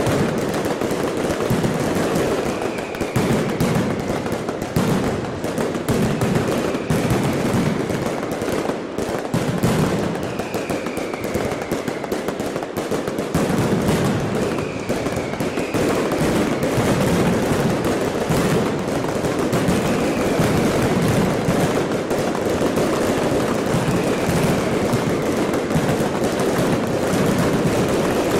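Fireworks going off in a dense, continuous crackle of bangs, with a short falling whistle every few seconds.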